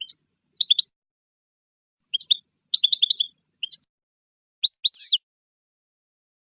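European goldfinch singing: short, high twittering phrases broken by brief pauses, with a rapid run of notes about three seconds in and a phrase ending in a bending, drawn-out note near the end.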